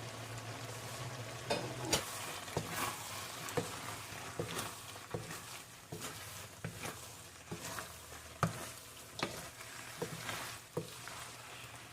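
Cabbage, mushrooms and snow peas being stirred through a bubbling sauce in a pan, with irregular knocks and scrapes of the utensil against the pan about once or twice a second over a steady sizzling hiss. A low hum stops about two seconds in.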